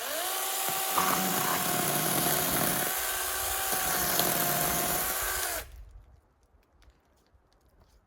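A power tool motor spins up quickly and runs at a steady high whine over a noisy rasp for about five and a half seconds, then cuts off abruptly.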